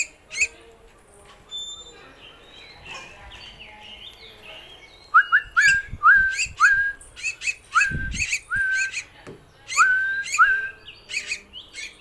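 Javan myna (jalak kebo) in a cage calling: soft chatter at first, then from about five seconds in a quick run of short calls, each rising and then holding its pitch, about two a second.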